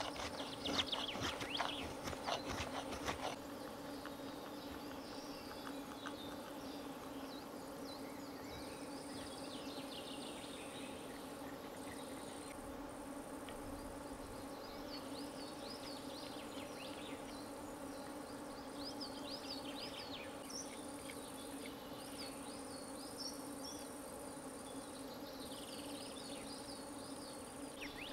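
A knife shaving wood in quick scraping strokes for about the first three seconds, as a wooden spoon blank is carved. Then forest ambience: a steady buzz of flying insects, a high insect trill that breaks off briefly every second or two, and small birds chirping now and then.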